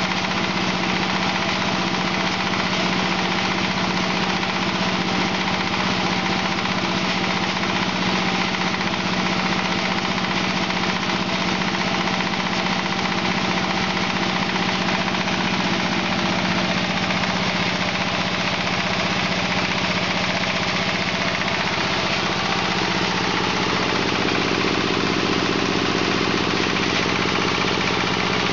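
Small single-cylinder diesel engine running a hammer mill that is grinding wood chips: a steady engine drone under the dense, even noise of the mill and its blower.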